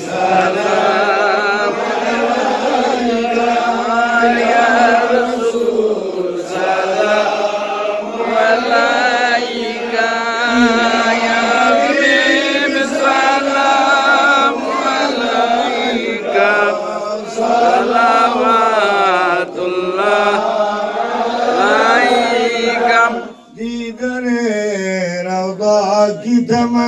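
Men chanting a devotional Arabic qasida in praise of the Prophet, in long drawn-out melodic lines. Near the end the chanting breaks off for about a second, then resumes with a strongly wavering voice.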